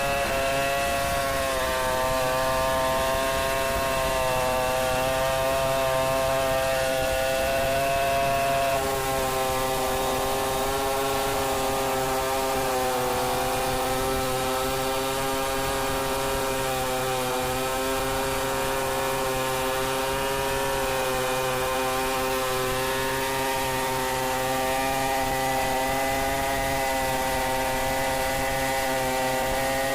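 Stihl 070 two-stroke chainsaw running at high revs under load as it cuts through wood, steady throughout. Its pitch drops slightly about nine seconds in as the cut loads the engine.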